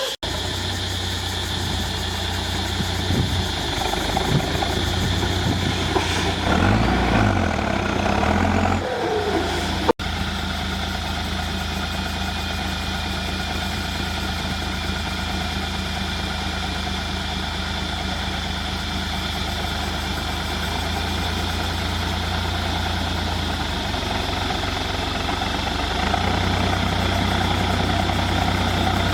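Heavy diesel engine of earthmoving machinery running steadily, with the engine note rising and shifting for a few seconds about six seconds in, a sudden break about ten seconds in, and running a little louder near the end.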